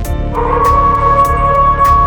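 A canine howl, one long steady note starting about a third of a second in and held on, over background music with a steady beat.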